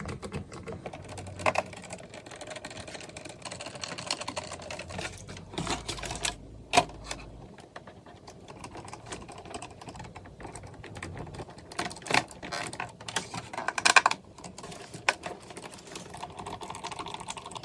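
Irregular light clicks and taps of plastic fender flares being pressed into place and small screws being driven by hand with a screwdriver into an RC truck body, with a few sharper clicks now and then.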